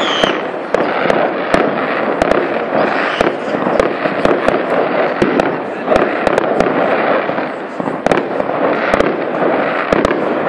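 Fireworks display: a few sharp bangs a second at irregular spacing over continuous crackling, with a short falling whistle right at the start.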